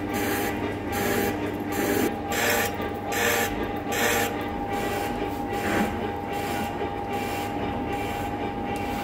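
Large centre lathe turning a steady band on a Caterpillar 777 haul-truck suspension strut: the cutting tool scrapes with a rhythmic pulse a little faster than once a second over the first half, over a steady tone from the running lathe.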